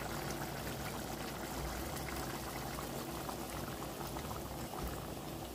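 Pot of broth-based seafood sauce bubbling steadily on the stove, with a continuous crackle of small bubbles popping.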